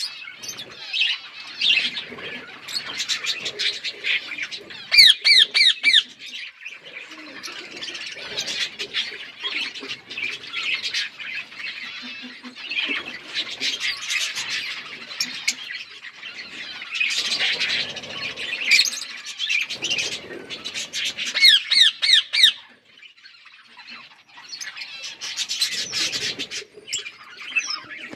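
Pet parrots chirping and squawking almost without pause, in a busy overlapping chatter. Several louder runs of quick rising chirps stand out, and there is a short lull about three-quarters of the way through.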